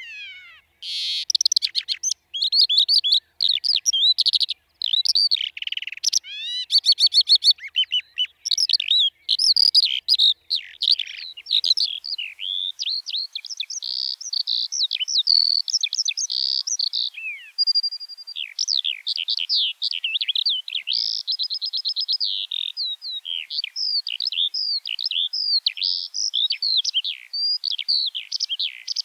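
Eurasian skylark singing its long, unbroken song: a rapid, continuous stream of high chirps, trills and warbles with barely a pause.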